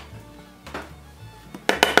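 Background music, with a few quick, sharp knocks of a mallet driving a wood chisel into a timber near the end.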